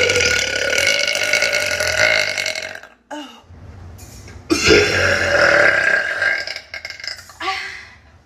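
A woman burping: two long, loud burps, the first already going at the start and lasting about three seconds, the second starting about four and a half seconds in and lasting about two and a half seconds, with a brief small one near the end.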